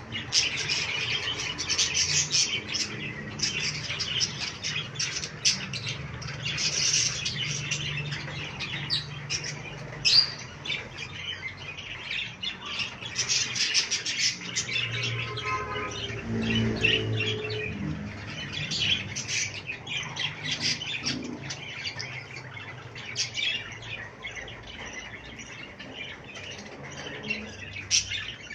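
Budgerigars chattering in a steady stream of rapid, high-pitched chirps and squawks, with a brief low hum about halfway through.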